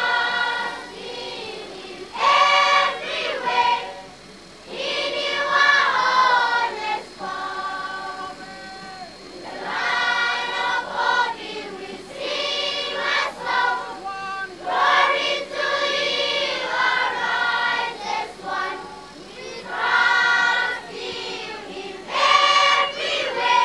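Large children's choir singing together, in sung phrases of a few seconds with short pauses between them.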